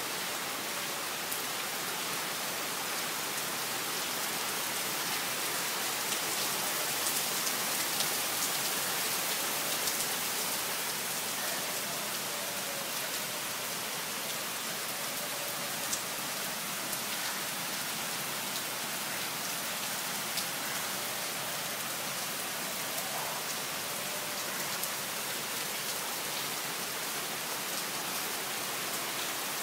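Steady monsoon rain falling, a constant even hiss with scattered sharper ticks of single drops. It swells slightly a quarter of the way in, then settles.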